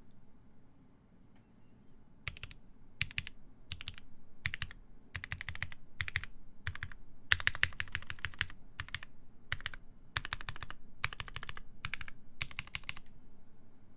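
Typing on a TGR Jane v2 mechanical keyboard with lubed Alpaca linear switches, GMK keycaps and a half polycarbonate plate. Short runs of keystrokes like words being typed, starting after about two seconds of quiet and stopping about a second before the end.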